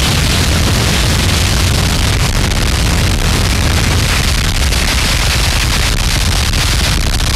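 Harsh noise music: a dense, distorted wall of noise at a steady loud level, with a heavy low rumble under a bright hiss and crackle, and no beat or melody.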